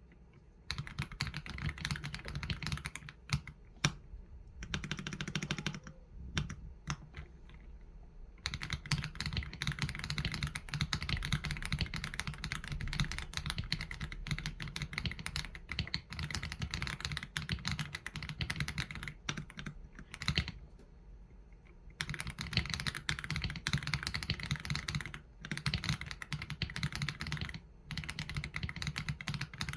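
Typing on an AULA F87 Pro mechanical keyboard with Leobog Graywood V3 linear switches and PBT keycaps: a dense, fast run of keystrokes broken by a couple of short pauses.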